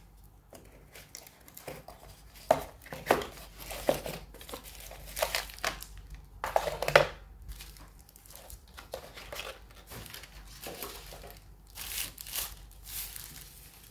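Thin plastic wrapping sleeve crinkling as hands pull a new tablet out of its box and unwrap it, in irregular bursts of crackle that are loudest in the first half and again near the end.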